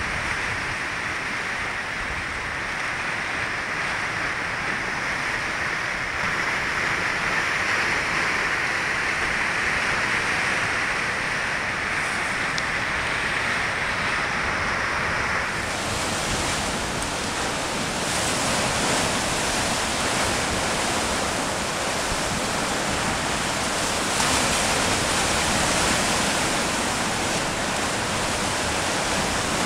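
Heavy sea surf breaking and washing against rocks: a steady, continuous rush of water noise with no single crash standing out. About halfway through it changes abruptly and becomes brighter and hissier.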